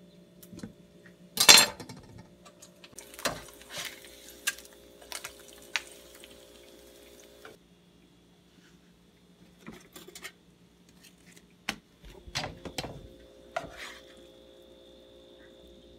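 Kitchen handling sounds: a chef's knife tapping and knocking on a plastic cutting board, with one loud sharp knock about a second and a half in, then scattered taps and clinks as slices are moved. Near the end a spatula scrapes and knocks in a non-stick frying pan. A faint steady hum runs underneath.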